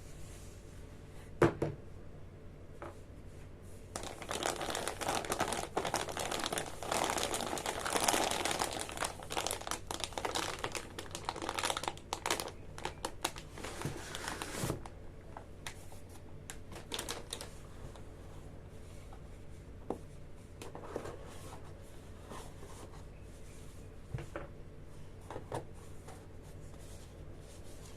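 Packaging crinkling as it is handled and unwrapped. There is a sharp knock about a second and a half in, then about ten seconds of dense crinkling, and after that scattered small clicks and taps.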